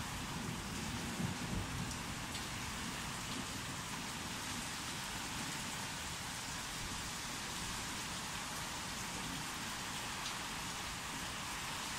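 Steady rain falling, with the tail of a low thunder rumble fading out in the first two seconds.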